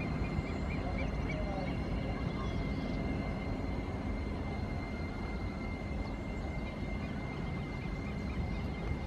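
Airbus A319 jet climbing away after takeoff: a steady low rumble of its engines with a thin high steady tone, slowly growing fainter.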